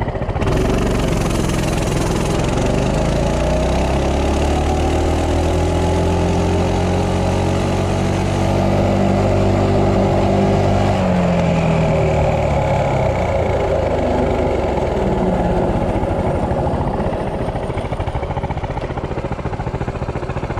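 Coleman CT200U minibike's 196cc single-cylinder engine through its stock exhaust, pulling hard from a standstill. Its pitch climbs quickly, then levels off at full throttle as the bike holds 30 mph. About 11 seconds in the throttle is shut, and the engine winds down toward idle as the bike coasts to a stop.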